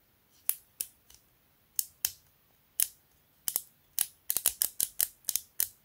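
Sharp plastic clicks from the three-position DC/OFF/BATTERY slide switch on a small battery-powered blower being flicked back and forth. There are a few scattered clicks at first, then quicker runs of clicks in the second half.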